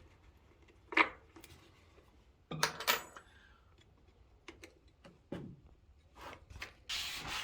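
Door lock hardware being handled and fitted into the door: a sharp metallic click about a second in, a short run of clinks around three seconds in, then a few softer knocks and a brief rustle near the end.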